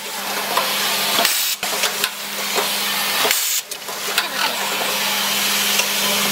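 Automatic copper pipe assembly machine running: a steady hiss over a constant low hum, with a few light clicks, dipping briefly twice.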